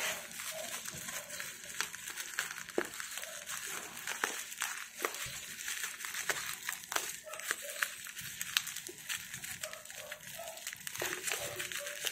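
Clear plastic stretch wrap on a parcel crinkling and crackling as hands squeeze and pull at it, trying to open it by hand, with many small crackles.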